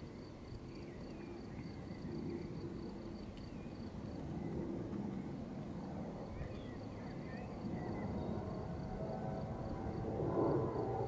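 Low wind rumble on the microphone, with an insect chirping at an even rhythm of about five pulses a second and faint bird calls. A humming sound made of several steady tones swells near the end and is the loudest part.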